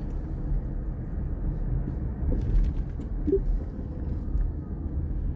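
Steady low rumbling noise with no speech, with a couple of faint brief ticks around the middle.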